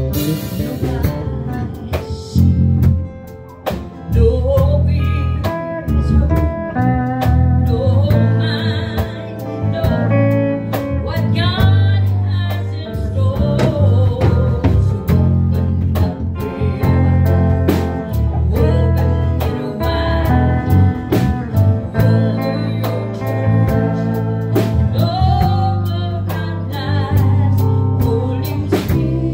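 Gold-top Les Paul–style electric guitar playing a blues lead line, single notes with string bends and vibrato, over a steady bass underneath.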